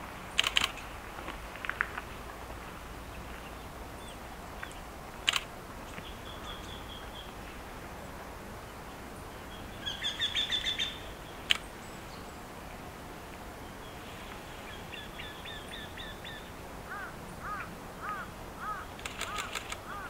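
Eurasian wrynecks singing back and forth: short runs of evenly repeated notes, the loudest run about halfway through, with fainter runs answering before and after it. Several sharp clicks stand out, near the start, around a quarter and halfway in, and near the end.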